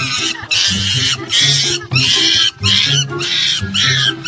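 Shrill squealing animal cries repeating about twice a second over background music with a stepping bass line.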